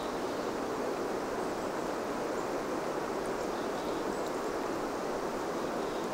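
A steady, even rushing noise like wind, holding one level throughout.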